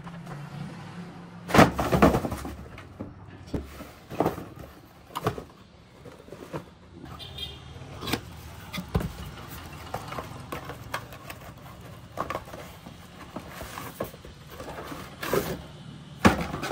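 Paper shopping bags and cardboard shoeboxes being handled and opened: irregular rustles, knocks and scrapes, the loudest about a second and a half in and again near the end, over a low steady hum.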